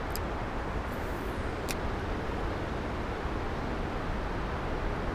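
Steady rushing noise of flowing creek water and wind, with two faint clicks about a second and a half apart.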